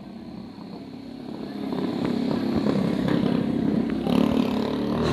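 Motorcycle engine running, growing louder over the first two seconds and then holding steady.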